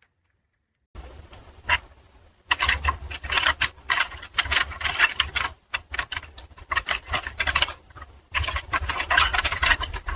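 Dense, irregular clicking and scraping with a low rumble underneath, starting about a second in and breaking off briefly twice.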